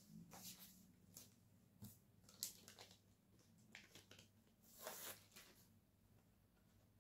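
Faint rustling and light clicks of a vinyl LP and its sleeves being handled as the record is slid out, in a few short scattered bursts.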